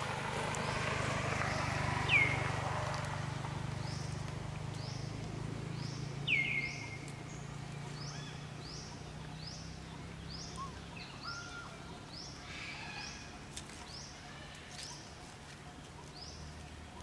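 A bird repeating a short, high chirp more than once a second, with two louder falling whistle-like calls about two and six seconds in, over a steady low hum.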